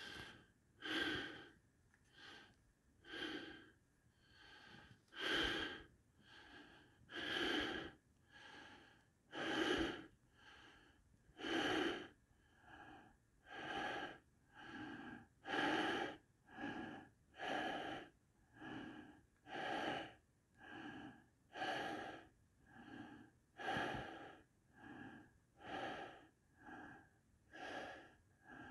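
A person breathing in and out audibly, about one breath sound a second in a steady rhythm.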